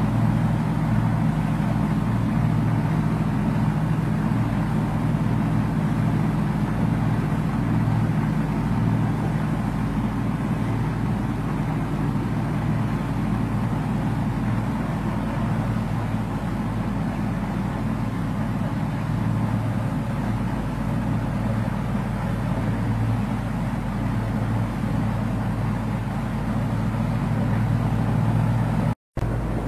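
Boat engine running steadily at speed, with the rush of water and wind over it. The sound cuts out for an instant near the end.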